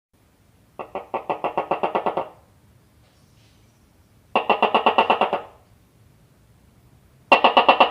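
A gecko calling: three bouts of rapid chirps, about nine a second, starting about a second in, near the middle and near the end.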